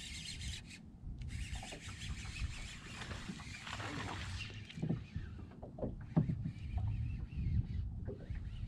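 A hooked bass thrashing and splashing at the water's surface, a hissing spell of spray from about a second in to four and a half seconds. Then come a few knocks on the boat, over a steady low rumble of wind on the microphone and water against the hull.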